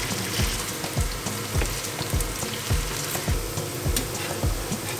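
Diced potatoes and onion sizzling as they fry in oil in a nonstick pan, stirred with a wooden spatula. Under the sizzle runs a steady low beat, about two thumps a second.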